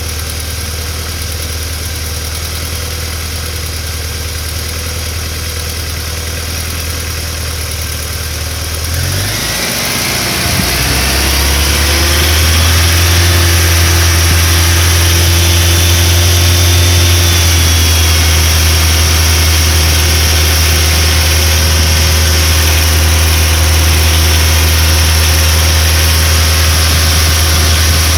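Audi 80 engine running, with the tapping of a knocking hydraulic valve lifter. About a third of the way in the engine note rises, and it runs on louder and higher.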